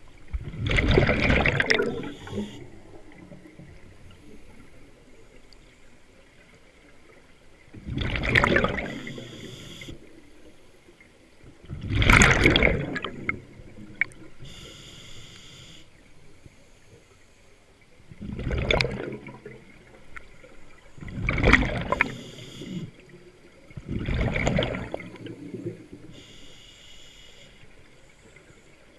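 Scuba diver breathing through a regulator underwater: six surges of exhaled bubbles gurgling out, each a second or two long and a few seconds apart, with a fainter high hiss between some of them.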